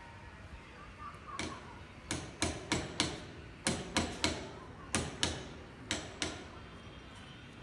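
Hammer blows on a building site: about a dozen sharp strikes in short groups of two or three, over about five seconds.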